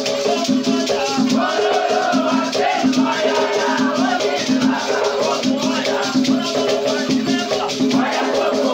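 Afro-Brazilian batuque ritual music: a rattle shaken in a steady, rapid rhythm over a pulsing beat, with voices singing.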